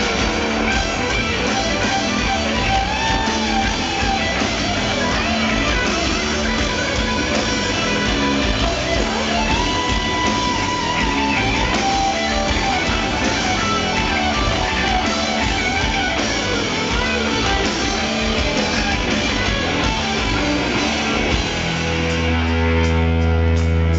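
A live rock band playing loud through a concert PA, heard from the audience: electric guitar over bass and drums. Near the end the band shifts to long low bass notes under evenly spaced cymbal hits.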